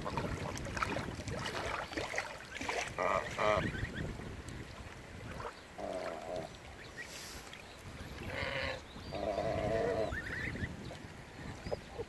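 Domestic geese honking: a pair of short calls about three seconds in, then more at about six, eight and a half and ten seconds. Faint high peeping from goslings near the end, over a low wind rumble on the microphone.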